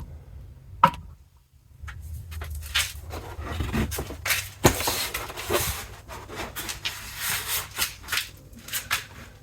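Plastic interior trim panel being handled and pushed back onto a car's tailgate: a sharp click, then a run of plastic rustling, scraping, knocks and clicks.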